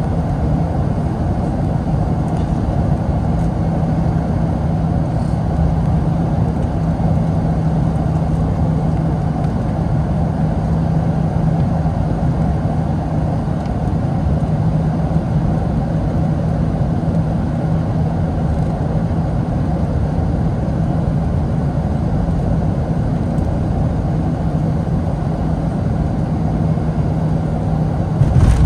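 Cabin noise of a Boeing 757-232 on final approach, heard by the wing over its Pratt & Whitney PW2037 engine: a steady rumble of engine and airflow with a steady low hum. It grows louder right at the end as the jet reaches the runway.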